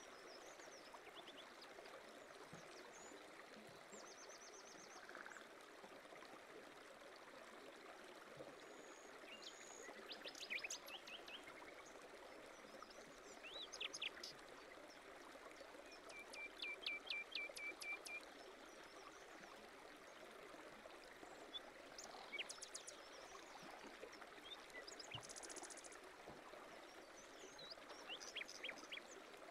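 Faint flowing stream with small birds chirping over it: scattered short calls and trills, the loudest a fast trill of evenly repeated notes about 16 seconds in.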